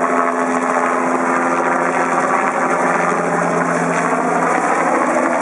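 Bell 206 JetRanger helicopter flying past low and close, a steady loud rotor and turbine noise whose pitch falls slightly as it goes by overhead.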